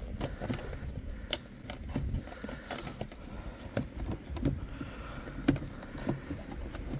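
Irregular plastic clicks and knocks as the plastic lid of a BMW E90's air filter housing is handled and lifted, heard over a low steady rumble.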